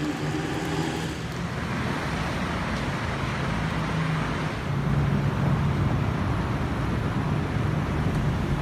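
Road traffic: vehicle engines running with a steady rush of tyre noise, the low engine hum growing louder about halfway through.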